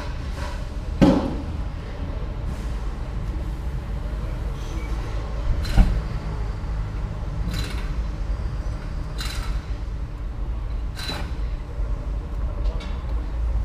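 Road and tyre rumble heard from inside the wheel arch of a Mercedes-Benz ML W164 on the move, beside its Airmatic air-suspension strut. Two sharp suspension clunks come through, one about a second in and a louder one near the middle, along with several short hissing rushes.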